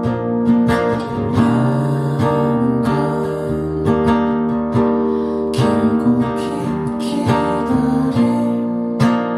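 Acoustic guitar strumming chords in an instrumental passage of a song, without singing.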